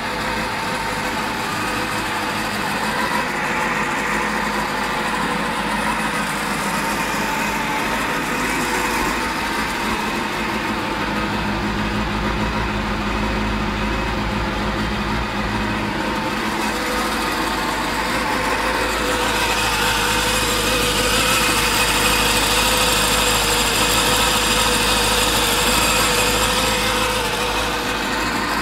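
Honda CB400 motorcycle engine idling steadily, a little louder in the second half.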